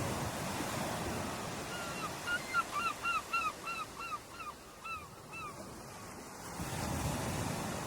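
Ocean waves breaking and washing on a beach, swelling near the start and again near the end. About two seconds in, a gull gives a quick series of around a dozen short calls, each rising and falling in pitch, about three a second, fading out after about four seconds.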